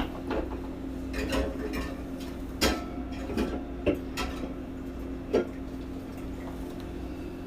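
Scattered clinks and knocks of hard objects being handled, about six separate strikes, over a steady low hum.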